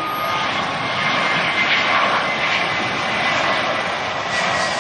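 United Airlines Airbus A319's IAE V2500 turbofan engines on final approach with the gear down: steady jet noise with a thin high whine that drifts slightly lower in pitch as the airliner passes close by.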